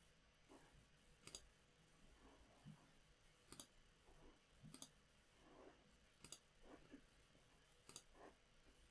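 Faint computer mouse clicks: five single clicks, a second or two apart, over near-silent room tone.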